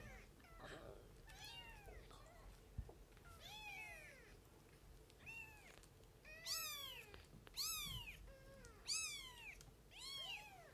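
Neonatal kitten mewing repeatedly: about ten short, high cries, each rising and then falling in pitch, coming louder and closer together from about the middle on.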